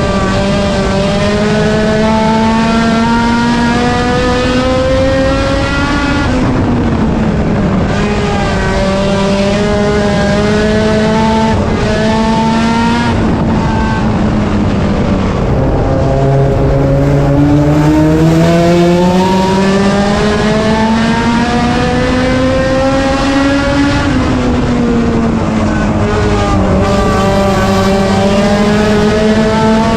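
Race car engine at racing speed on an oval, its pitch climbing steadily as it accelerates and then dropping sharply as it lifts off, about every eight or nine seconds. Tires squeal at times.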